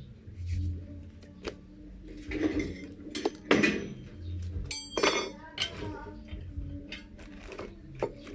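Metal parts and hand tools clinking and knocking, with several sharp clinks, one of which rings briefly about five seconds in.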